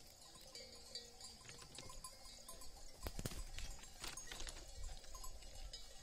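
Faint, scattered clinks and knocks of bells on grazing livestock, with two stronger knocks about three and four seconds in, over quiet open-air ambience.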